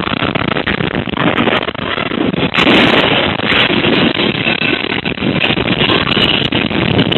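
Loud, continuous rumbling and rattling as an earthquake shakes the building, picked up by a CCTV camera's microphone. The noise swells about two and a half seconds in.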